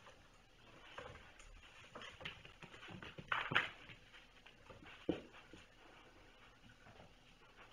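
Kittens moving about and playing: scattered light knocks, taps and scuffles, with a louder cluster about three and a half seconds in and a sharp knock about five seconds in.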